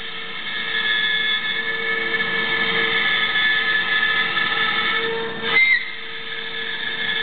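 CNC cutting machine running with a steady high-pitched whine of several held tones, with a brief louder surge about five and a half seconds in.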